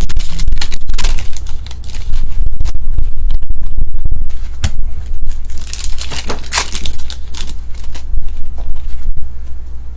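Foil trading-card pack wrappers being torn open and crinkled by hand: a dense run of crackling, rustling and tearing, close and loud.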